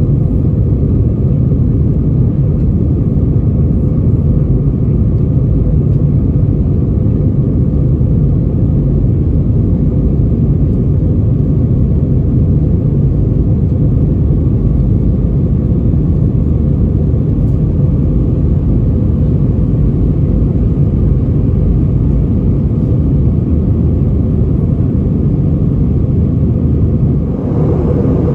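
Steady, loud rumble of engine and airflow noise inside the cabin of an Airbus A320 airliner. The sound shifts slightly near the end.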